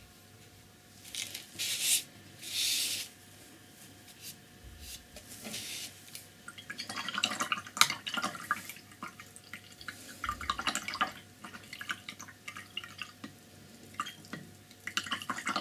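Paintbrush being rinsed in a jar of water: a couple of short swishes near the start, then dripping with runs of light clicks and rattles.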